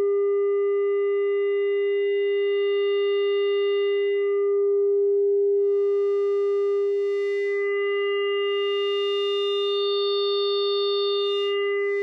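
Mutable Instruments Tides v2 running as an audio-rate oscillator: one steady low-mid synth tone whose upper harmonics swell and fade as its smoothness knob sweeps the wavefolder. The overtones grow richer and brighter in the second half.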